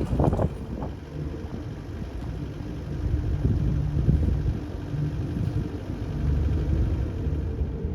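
Sailboat's inboard engine running steadily under way: a low, even hum.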